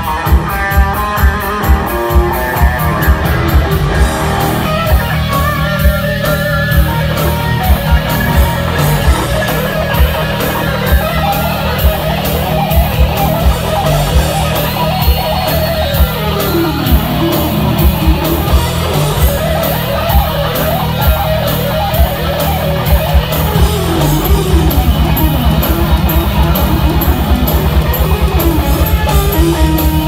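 Live heavy metal instrumental: a lead electric guitar plays fast melodic runs with a few sweeping pitch glides, over bass guitar and drums. Near the end the bass drum switches to a fast, steady double-kick pulse.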